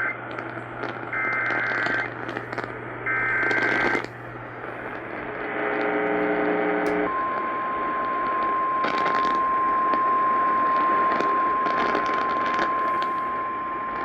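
Emergency Alert System tones received over AM radio with hiss and crackle. First come two short screeching data bursts of the alert header, each about a second long. A brief two-tone attention signal follows, and from about seven seconds in a long steady single alert tone sounds, announcing a severe thunderstorm warning.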